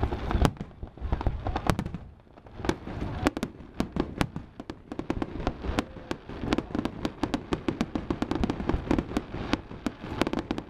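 Fireworks going off: a string of sharp bangs and crackles, easing briefly about two seconds in, then coming thick and fast in a rapid run of reports.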